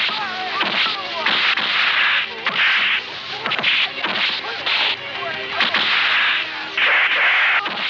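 Dubbed movie fight sound effects: a rapid series of swishing whooshes for punches and kicks, about one every second or less, the longest near the end.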